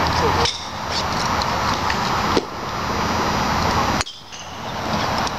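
Golf club striking balls off a driving-range mat: three sharp hits, about a second and a half to two seconds apart. Under them is a steady hum of road traffic.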